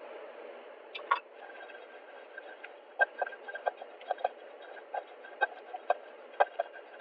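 Peanuts and sesame seeds dry-roasting in a nonstick frying pan as a spatula stirs them: scattered light clicks and taps, a couple about a second in and then irregular ones every fraction of a second from about three seconds in, over a faint steady hiss.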